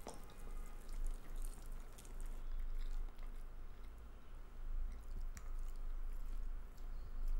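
Eating spaghetti with a fork from a plate: a few short clinks and scrapes of the fork on the plate, with chewing, over a steady low hum.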